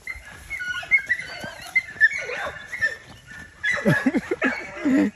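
Dogs whining and yipping, with short high whines through the first half and lower, louder yelps near the end.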